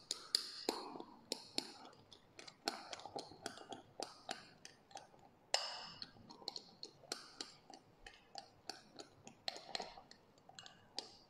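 A small metal spoon clinking against a glass in a quick, irregular run of light clicks as whipping cream and red bean puree are stirred by hand into a dalgona foam.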